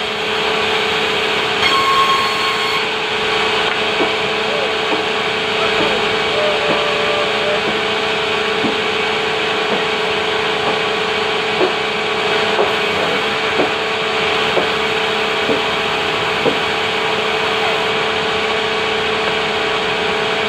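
Sawmill saw running steadily and cutting timber, a constant mechanical hum under the noise of the blade in the wood. Short squeaks or knocks come about once a second midway.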